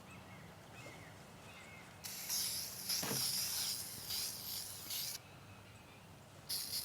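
Aerosol spray-paint can spraying: one long hiss of about three seconds, then a short burst near the end, laying a coat of colour paint over primer.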